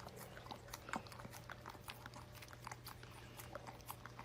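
A dog eating, with faint, irregular wet smacks and clicks of chewing and licking, over a steady low hum.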